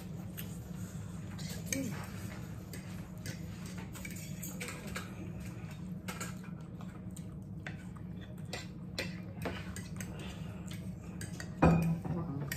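Metal forks clinking and scraping on dinner plates as two people eat, with small clicks scattered throughout over a steady low hum. A louder knock, like a plate or utensil set down on the table, comes near the end.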